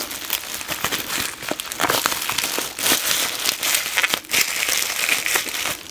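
Clear plastic bubble wrap crinkling and crackling as hands pull it off a small cardboard card box, with many sharp crackles throughout.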